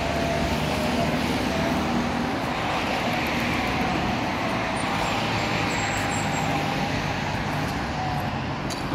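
Steady road traffic noise: cars passing on a city street.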